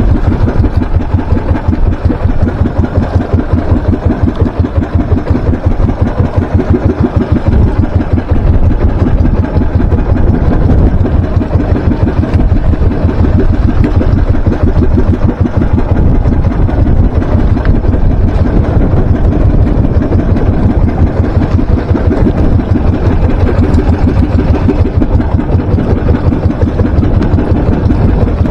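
Small engine of an outrigger fishing boat running steadily and loud, with a fast even beat, the hull pushing through choppy water.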